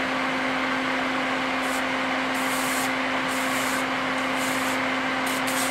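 AC Infinity 120 mm AC cooling fan running steadily, a rush of air with a steady low hum. Flux burning under a soldering iron tip sizzles in short bursts of hiss several times over it.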